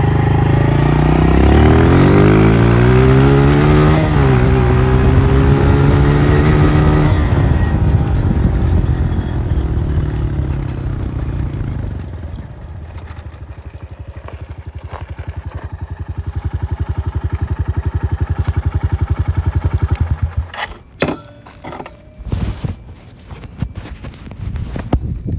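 Honda CRF125F single-cylinder four-stroke dirt bike on its stock exhaust, accelerating with a rising pitch and a short dip about four seconds in, like a gear change, then fading away. It then runs steadily and more quietly until it cuts off suddenly, followed by a few scattered clicks and knocks.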